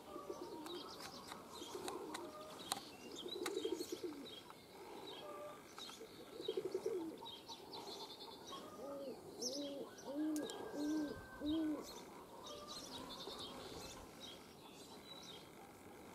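Pigeons cooing repeatedly, including a run of five short rising-and-falling coos about halfway through, over the high-pitched chirping of small birds.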